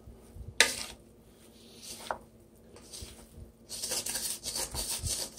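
Two wooden spatulas tossing and scraping a beef and vegetable stir fry in a copper-coloured pan. There is a sharp knock about half a second in and a lighter one near two seconds, then rapid scraping and clatter in the second half.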